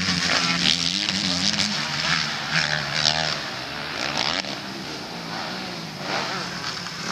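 Motocross bike engines running hard at high revs, steadiest in the first few seconds and then fading, with spectators' voices mixed in.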